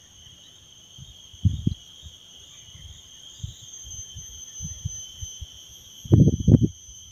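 Steady high-pitched insect chorus. Several low thumps break through it, the loudest a cluster of three about six seconds in.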